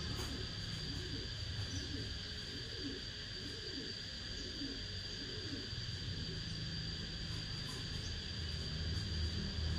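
Insects droning steadily at one high pitch, over a low rumble, with short low calls repeating through the first half.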